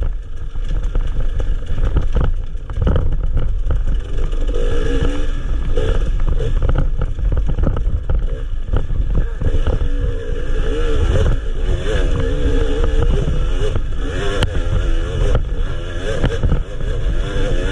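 Enduro motorcycle engine heard from an onboard camera while riding a dirt trail, its revs rising and falling constantly with the throttle. A heavy low rumble and frequent knocks from the bumpy ground run under it.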